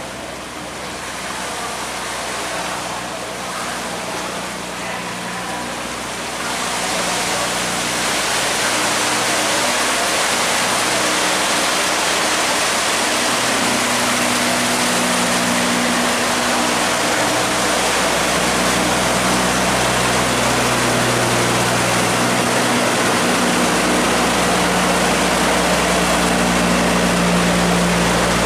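Water rushing through an open sluice gate, a churning roar that grows louder about six seconds in, with a boat engine running steadily underneath as the vessel pushes against the strong current; the engine grows stronger in the second half.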